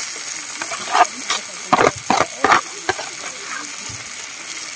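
Chopped banana heart frying in a metal wok with a steady sizzle. A metal spoon scrapes and clicks against the pan as the food is stirred, mostly in the first three seconds.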